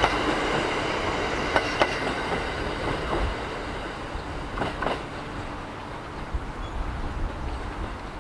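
A train rolling over rail joints, the wheels clicking a few times with a faint high ringing from the rails, the sound fading as the train draws away.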